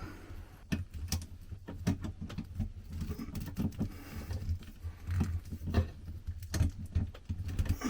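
Pliers gripping and twisting bare copper ground wires together: irregular light clicks and scraping of metal on metal.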